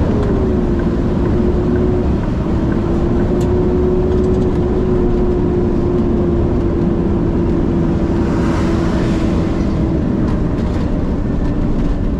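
Diesel refuse truck driving, heard from inside the cab: steady engine drone and road noise with one held tone that drops slightly in pitch just after the start and again about ten seconds in.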